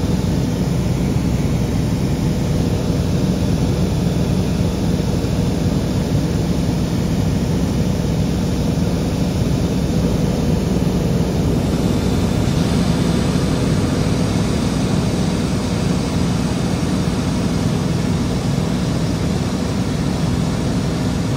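Steady engine-and-propeller drone of a small propeller airplane in cruise, heard inside the cabin: a loud, unchanging low hum.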